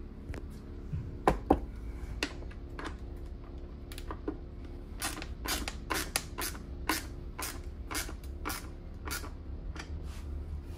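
Socket ratchet clicking as bolts on a dirt bike's subframe are snugged down to check they are tight: two louder clicks about a second and a half in, then a run of sharp clicks at about two a second through the middle, over a low steady hum.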